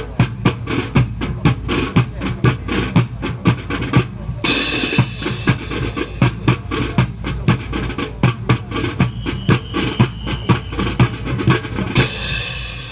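Drums beating a steady, driving cadence of sharp strikes, several a second, as accompaniment to a fancy rifle drill, with a cymbal-like crash about four and a half seconds in and another near the end.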